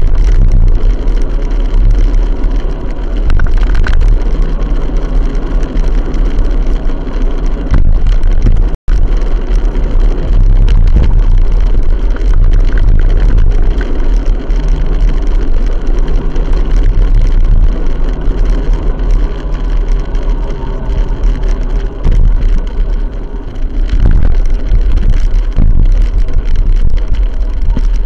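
A road vehicle driving along a street: continuous engine drone under a heavy low rumble, with a momentary dropout about nine seconds in.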